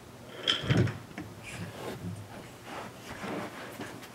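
Wooden toy trains pushed by hand along wooden railway track: the wheels roll and clack over the track, with a firmer knock under a second in and lighter irregular clatter after.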